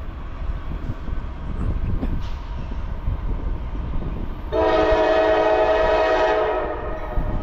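Locomotive air horn on an approaching Norfolk Southern freight, one long steady blast of about two seconds starting a little past halfway, over a low rumble; the blast tapers off near the end.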